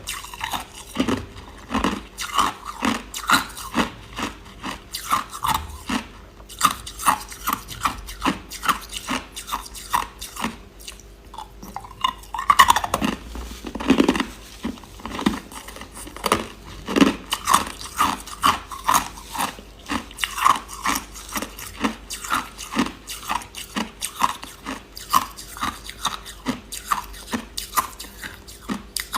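A person chewing hard, clear crushed ice: a steady run of crisp crunches, about two a second, with a louder crunch a little past the middle.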